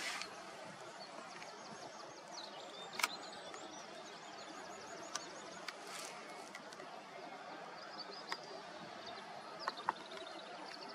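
Steady outdoor background hiss with small birds chirping in quick runs of short high notes, and a few scattered sharp clicks.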